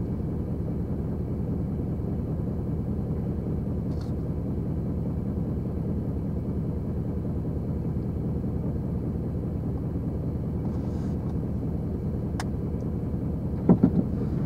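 Pickup truck engine idling steadily. A couple of short knocks come near the end.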